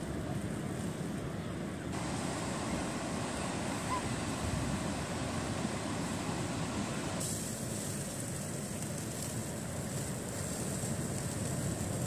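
Wind buffeting the microphone over surf: a steady rushing noise that changes abruptly twice where the shots are cut.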